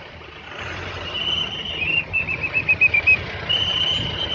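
A high-pitched whistle: a long steady note, then a fast fluttering run of about seven short pips, then another long note near the end, over a low steady rumble.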